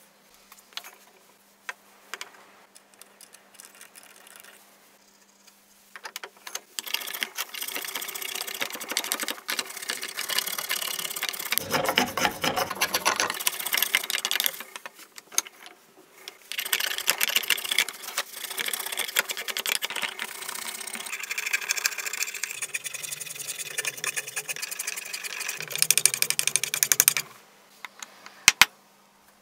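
Hand tool working a wooden hatchet handle: fast, repetitive scraping strokes, stopping briefly partway through, then a few sharp taps near the end.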